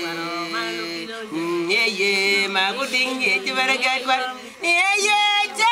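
A group of voices singing an African song in chorus, several voices holding overlapping notes with no instruments heard. After a brief dip, a louder, brighter voice comes in near the end.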